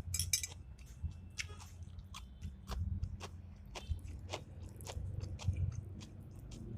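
A person chewing and biting food close to the microphone, with many short wet clicks and crunches.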